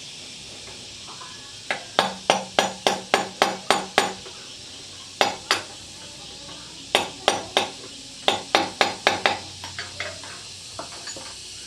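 Sharp metallic knocks, about three a second, in several runs with short pauses between, each blow ringing briefly, then a few fainter taps near the end, over a steady hiss.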